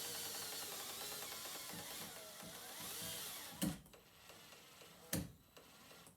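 Power drill-driver motor running with a wavering pitch for about three and a half seconds, then stopping, followed by two sharp knocks.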